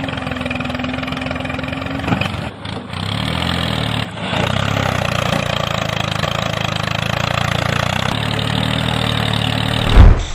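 A small engine running steadily with a fast, even pulse, dipping briefly twice in the first half, then a single loud thump near the end.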